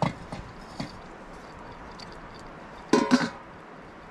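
Metal cookware knocking: a few light clinks in the first second, then a louder ringing clatter of metal dishes about three seconds in.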